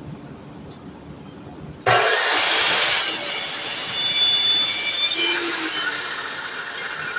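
DeWalt miter saw starting up suddenly about two seconds in and cutting, loudest for about a second, then running on with a high whine that slowly fades.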